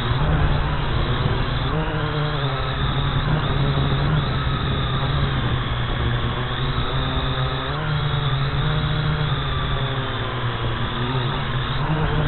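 Multirotor drone's motors and propellers humming steadily, heard through the camera mounted on the drone, the pitch rising and falling as it manoeuvres, over a low buffeting rumble.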